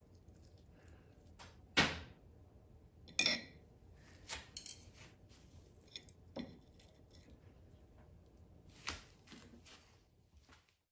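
Kitchen utensils and dishes knocking and clinking, a handful of separate clinks and knocks, one of them ringing briefly.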